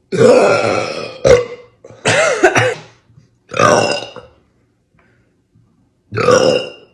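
A woman burping loudly after drinking Sprite: four long burps and a short one just after the first, with short silences between them.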